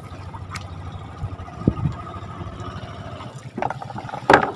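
A fine-mesh fish net being hauled by hand over the side of a small wooden boat, with water splashing and dripping off it, and two sharper splashes near the end. A low steady hum runs underneath.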